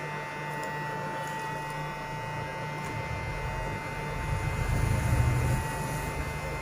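Steady electrical hum with a high, even whine from the repair bench's equipment. A low rumble builds about four seconds in, is loudest around five seconds, and fades away by six.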